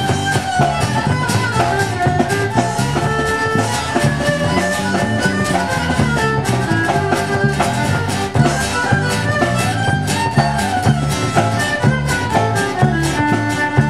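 Live country band's instrumental break: a fiddle plays a quick, stepping melody over the band's steady beat.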